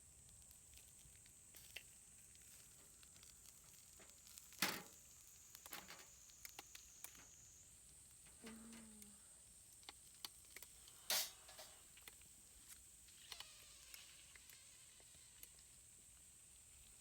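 Quiet background with scattered light clicks and taps, and two louder knocks, one about a third of the way in and one about two-thirds in, over a steady thin high hiss.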